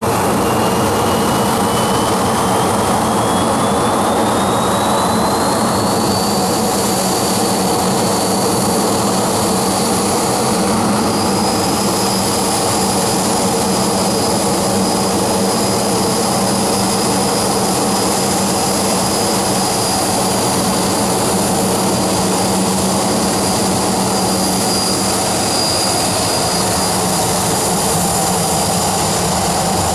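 Boeing 737-800's CFM56 jet engines running loud and steady, with a high whine that rises in pitch over the first six seconds and then holds level.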